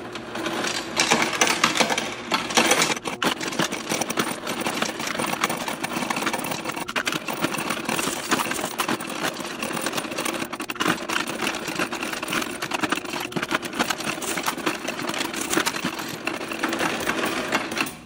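Cassida C300 coin sorter running, its motor humming under a dense, continuous clatter of mixed coins being fed, counted and dropped into the sorting bins. The sound cuts off suddenly near the end as the machine stops with a bin at its batch limit.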